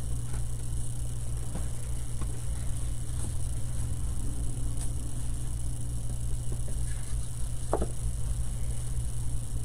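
A steady low electrical hum under faint tabletop handling sounds: small wooden craft pieces and a glue bottle moved on a paper-covered counter, with one slightly louder click near the end as the bottle is set down.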